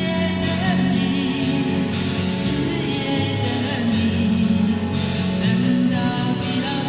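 Amateur female singer performing a Chinese pop song over a karaoke backing track with a steady beat.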